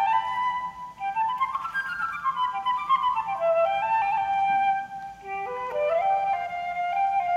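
Solo flute playing a short piece live: quick runs of notes falling and rising, then slower, longer held notes over the last couple of seconds.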